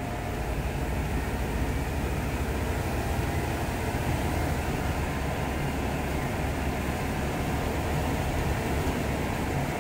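Steady in-cabin drone of a 1979 Ford Granada 3.0 GL automatic cruising at speed: its 3.0-litre Essex V6 engine mixed with tyre and road noise, holding an even level throughout.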